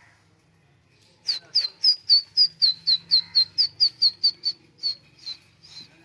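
Rose-ringed parakeet giving a rapid run of short, high, downward-sliding calls, about four a second. The calls start about a second in and pause briefly near the end.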